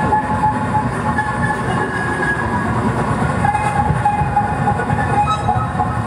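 Live harsh noise performance through a PA: a loud, dense, rumbling wall of electronic noise, with steady high whining tones that come and go on top of it.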